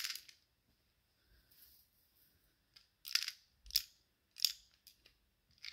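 Small sharp plastic clicks from a spring-powered Derringer airsoft pistol being loaded with BBs by hand: one click at the start, a pause, then four or five irregular clicks in the second half.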